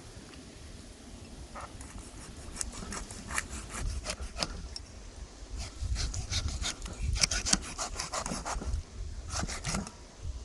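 Irregular series of short scraping strokes, getting louder about halfway through.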